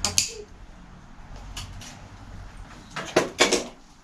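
Short knocks and clunks from handling tools and a bicycle in a workshop: a click just after the start, a couple of faint knocks, then a quick cluster of sharper knocks about three seconds in.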